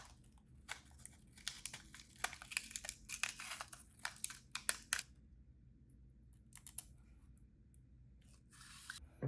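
Small keyboard-kit parts and packaging handled by hand: a busy run of light clicks and plastic rustling, with a few more clicks later and a short rustle near the end.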